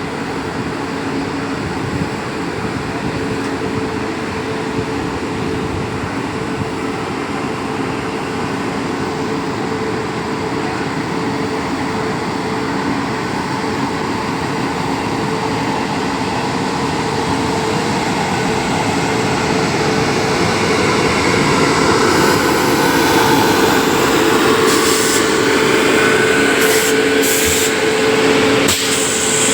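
A passenger train rolling out of a station: a steady rumble with a constant hum, growing gradually louder in the second half. A few sharp clacks come near the end.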